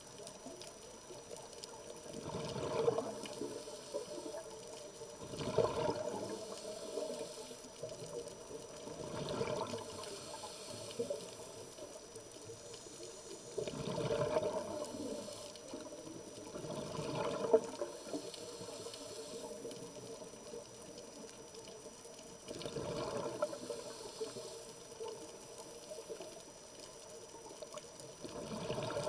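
Scuba diver's regulator breathing heard underwater: bursts of exhaled bubbles every few seconds, each lasting about a second, over a steady low water hiss.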